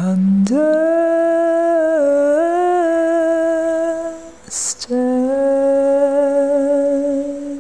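A solo singing voice drawing out the word "under" in long held notes that step down and back up slightly, with a breath about four and a half seconds in before the next held note.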